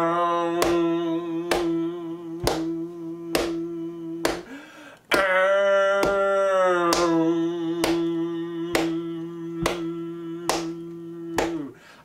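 Vocal a cappella background music: long held sung notes with a finger snap about once a second, the voice breaking off briefly near the middle and dropping away at the end.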